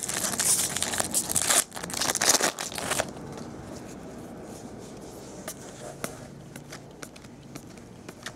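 Foil wrapper of a baseball card pack crinkling and tearing as it is pulled open, loud for about three seconds. Then it stops and only soft handling of the stack of cards remains, with faint scattered ticks.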